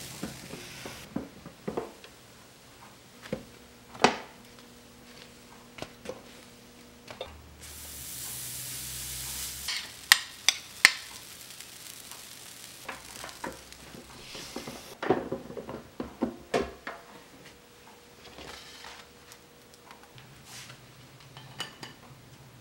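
Batter hissing on the hot plates of a waffle iron, with scattered sharp clicks, taps and clinks of utensils and cookware.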